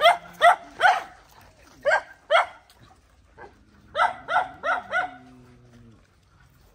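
Dogs barking in short, sharp barks: three in quick succession at the start, two more about two seconds in, then a rapid run of four around four seconds in.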